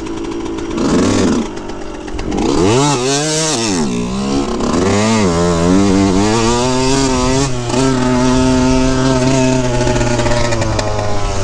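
2003 Yamaha YZ125's single-cylinder two-stroke engine under a rider, revs rising and falling several times, then held fairly steady and easing off near the end. The rider thinks it is bogging and not running right.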